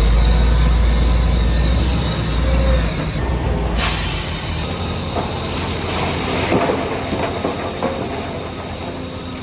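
Heavy earthmoving machinery: a diesel engine runs with a heavy rumble that drops off about three seconds in, over a steady hiss. Steel crawler tracks give light squeals and irregular clanks, more often in the second half.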